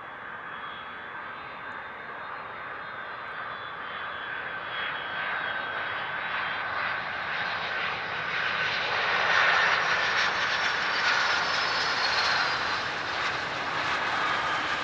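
Boeing 757-200 airliner on final approach, gear down, its twin turbofan engines sounding as a steady whine over a rushing noise. It grows louder as the jet comes in low and close, and is loudest about two thirds of the way through.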